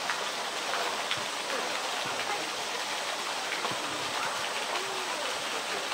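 Steady rush of running water, with faint scattered voices of people.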